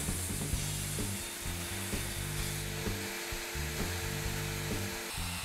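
Table saw running and cutting through a plywood strip, a steady hiss that eases a little about halfway through. Background music plays under it.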